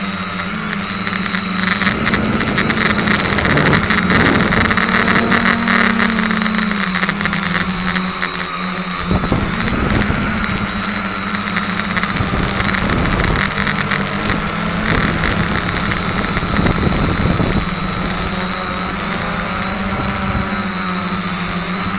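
SK450 quadcopter's four brushless motors and propellers droning, heard from the camera on board; the pitch rises and falls as the throttle changes through the flight. Gusty rushing noise rides over it, heaviest around the middle.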